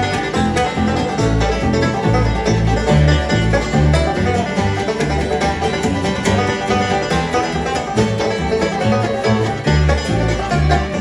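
Bluegrass band of banjo, mandolin, fiddle, guitar and bass playing an instrumental break without singing, over a steady bass beat.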